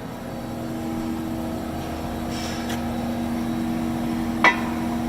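Ficep Excalibur CNC beam drill line running: a steady machine hum on two low tones that grows slightly louder, with one sharp knock about four and a half seconds in.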